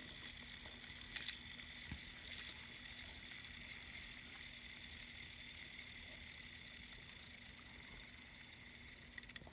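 Fidget spinner whirring on its bearing, a steady faint whir that slowly fades as it winds down. A few light clicks come about a second in and again near the end.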